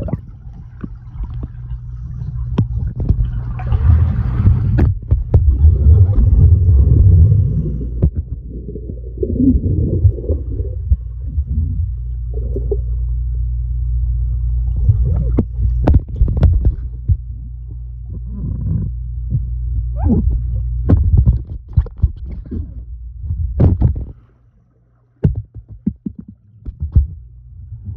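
Swimming-pool water heard through a camera held underwater: a steady low, dull rumble with sloshing in the first half, then scattered sharp knocks and clicks, and a brief hush about three-quarters of the way through.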